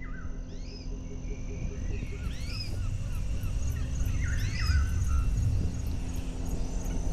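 Outdoor nature ambience: birds repeating short phrases of swooping calls about every two seconds, over a steady high insect trill and a low rumble.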